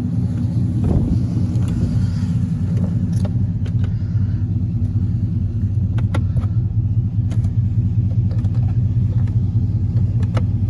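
2009 Chevy Silverado's 4.8-litre V8, fitted with aftermarket headers, idling steadily at about 700 rpm with a deep, even note.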